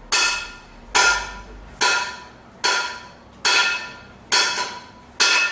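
A sharp ringing strike repeated evenly about once a second, seven times. Each strike has a bright metallic ring that fades within half a second.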